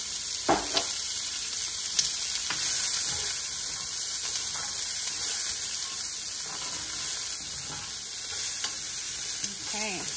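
Diced onion sizzling in hot oil in an enamelled cast-iron pan while a spatula stirs and scrapes across the pan bottom, lifting the browned beef bits. A few knocks of the spatula on the pan about half a second and two seconds in.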